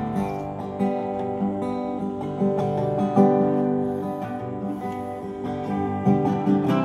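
Wood-bodied resonator guitar strumming chords in a steady rhythm, with a steel guitar holding sustained notes over it.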